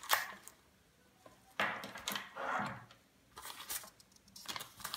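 Rustling and light knocks of a soft zippered meter case being handled, as a clamp meter and its test leads are rummaged and a paper leaflet is pulled out, in several short bursts.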